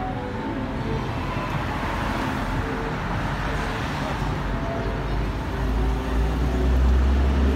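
City road traffic: cars passing with a steady hiss of tyres and engines. A deep low rumble swells about six seconds in and stays loud to the end.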